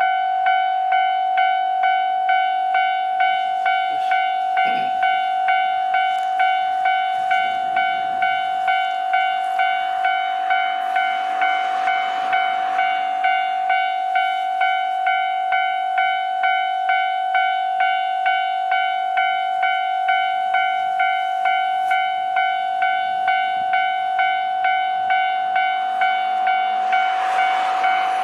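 Japanese level crossing's electronic warning bell ringing in a steady, even rhythm, the signal that a train is approaching and the crossing is closed. A swell of rushing noise rises and falls in the middle and again near the end.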